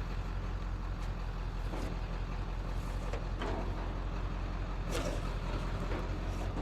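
A vehicle engine idling with a steady low hum, over several short scrapes and rustles as ropes and straps are handled on a load.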